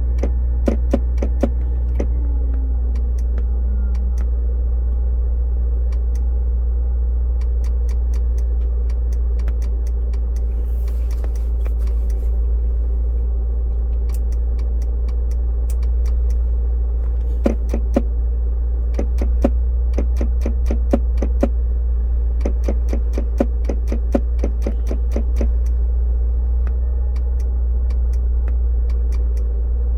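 Land Rover Discovery Series II idling, with runs of sharp, rapid clicking, about two to three a second, from behind the dash near the fusebox. This is a fault that shows only at cold morning start-up: the clicking keeps time with the blinking shifter lights and grows louder when the brake is pressed and the shift lock engages.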